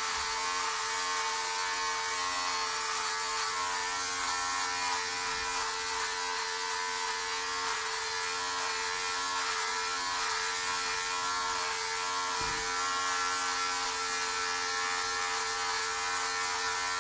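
Electric shaver running with a steady buzz as it is drawn over the back of a shaved scalp.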